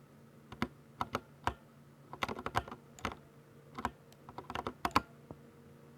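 Typing on a Ducky 60% mechanical keyboard with silver linear switches: irregular keystroke clacks, a few spaced strokes and then quick runs of keys, the sharpest stroke near the end.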